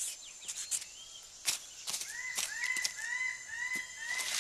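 A bird calling a quick run of short, arching notes, about two or three a second, starting about halfway in. The calls ring over a steady high whine of forest insects and a few scattered sharp clicks.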